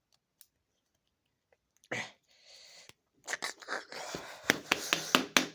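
Packaging being handled and pulled open: a short rustle about two seconds in, then crinkling and crackling with many sharp clicks from about three seconds in.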